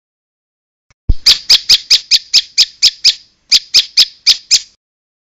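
A prinia (prenjak) calling: a rapid run of sharp, high chips, about four a second. Ten come in a row, then a brief pause and five more.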